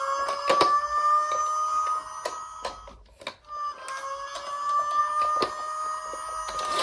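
Electronic siren of a toy emergency-vehicle minicar: a steady tone that wavers slowly in pitch, cuts out for under a second midway, then comes back. Scattered clicks and knocks of the toy's plastic run under it.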